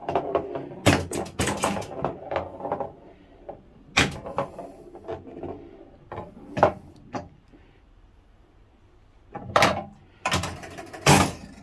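Electromechanical Big Indian pinball machine (1973) in play: scattered sharp clacks of coils, switches and scoring as the ball runs around the playfield, some followed by brief ringing. Near the end comes a cluster of quick mechanical clacks.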